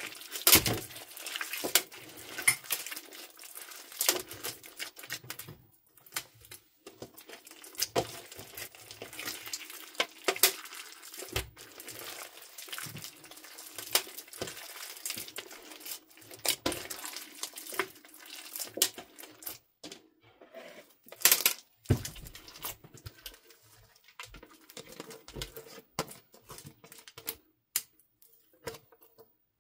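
Hands squeezing, kneading and pulling apart thick, wet slime packed with small beads, giving a continuous run of wet squelches, sticky tearing and crackling clicks, with a few louder pops.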